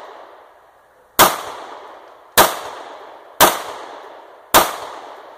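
Four shots from a Hi-Point C9 9mm pistol, about a second apart. Each sharp crack trails off over about a second. The pistol is firing Tula brass-cased ammunition and cycles every round without a stoppage.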